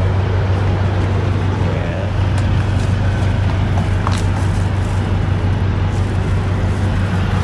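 Semi truck's diesel engine idling: a steady low hum with rumble, and a couple of faint clicks.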